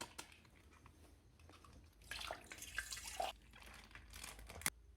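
Faint liquid sounds of water-filled bags being handled: soft splashing and dripping, with a few sharp clicks, one near the end.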